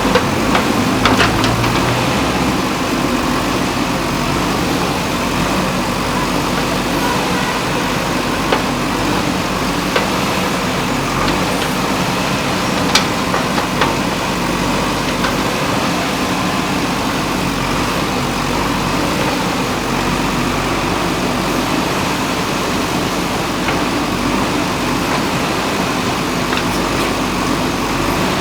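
JCB backhoe loader's diesel engine running steadily, with a few short sharp knocks scattered through it.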